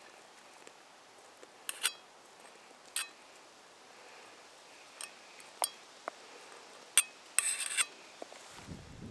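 Cutlery clinking against a metal pot of berries: about eight sharp, separate clinks, some ringing briefly, with a quick rattle of clinks near the end.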